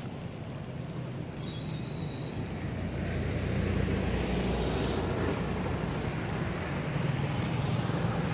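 Motor vehicle traffic: a low engine rumble that grows louder from about three seconds in and then holds steady. About a second and a half in, a brief high-pitched squeal is the loudest sound.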